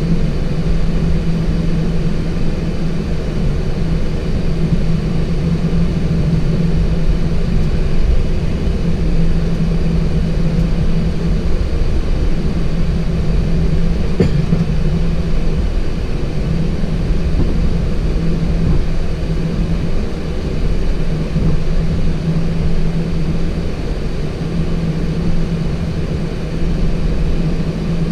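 Steady flight-deck noise of a Boeing 737-800 taxiing, its CFM56 engines at idle: a continuous low rumble under an even rush, with a steady low hum that dips briefly now and then.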